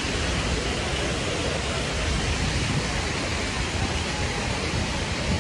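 Steady rush of a large fountain's falling water in an open city square, a continuous even noise with no breaks.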